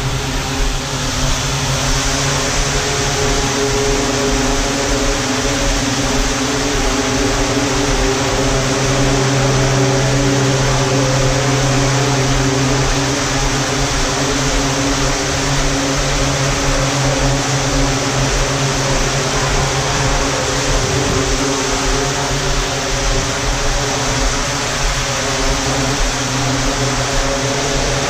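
Multicopter's electric motors and propellers buzzing steadily in flight: an even hum of several held pitches over a hiss of rushing air, swelling slightly about a third of the way through.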